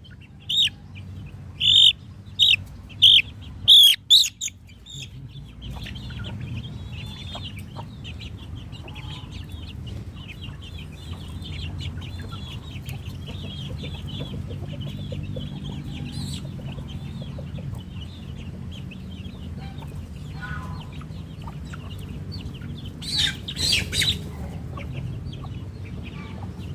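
Chickens clucking and squawking: a run of loud, short, high calls in the first few seconds and another cluster near the end. Softer high chirping continues in between over a low steady hum.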